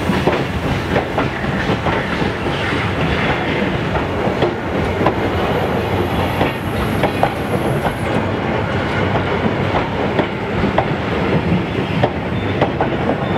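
Passenger coaches rolling slowly past, their wheels clicking and clattering irregularly over the rail joints with a steady rumble underneath.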